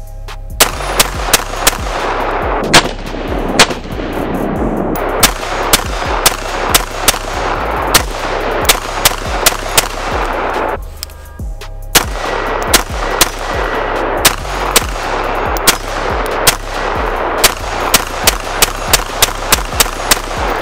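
Custom AR-pattern rifle firing rapid semi-automatic shots, about two a second, in strings with a pause of about a second near the middle.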